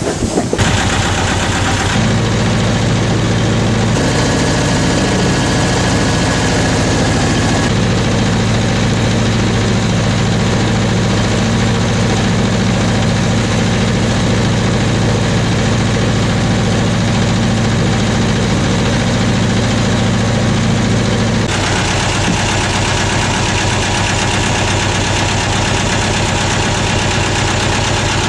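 Boat engine running steadily at a constant speed, its note changing abruptly about two seconds in and again about three-quarters of the way through.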